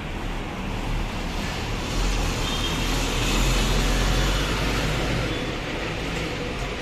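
Bus engine running as the bus drives slowly past close by, swelling to its loudest midway and easing off after about five seconds.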